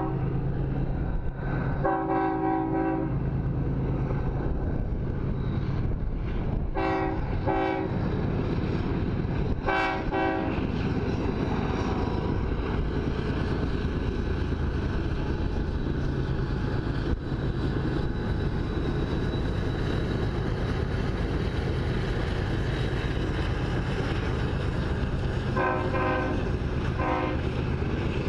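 BNSF diesel locomotives sounding their air horn: one long blast about two seconds in, two short ones around seven seconds, another near ten seconds and two more near the end. Under the horn is the steady drone of the locomotives working down the grade.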